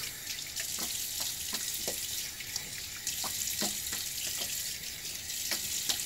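Bathroom faucet running steadily into the sink, with irregular splashes as water is scooped onto the face to rinse off shaving lather.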